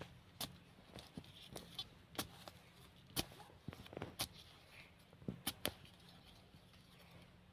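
Small hand trowel digging into dry, crumbly soil: irregular scrapes and sharp knocks as the blade bites and loosens earth, several in a row with short gaps.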